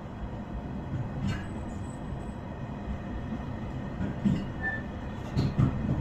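Cabin sound of an electric commuter train pulling out of a station and gathering speed: a steady low rumble of wheels and running gear, with a few short clicks and knocks, the loudest cluster near the end.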